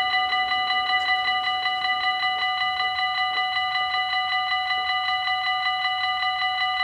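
Dutch automatic level-crossing warning bell ringing rapidly and steadily with a bright, multi-toned electronic ring, the signal that the half-barriers are closing for an approaching train.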